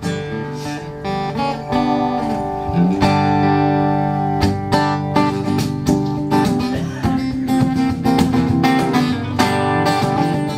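Acoustic guitar strumming and picking the intro to a country song.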